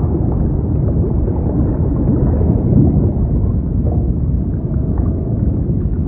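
Underwater ambience: a steady, low, muffled rumble of moving water, with a few faint clicks.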